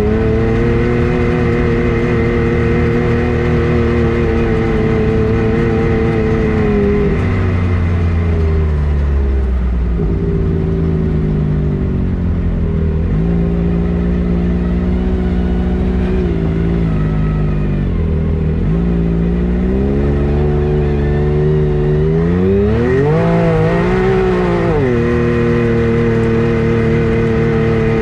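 A vehicle engine running steadily under way, heard close. Its pitch drops and recovers a few times about halfway through, then climbs sharply and falls back near the end, as the throttle is worked.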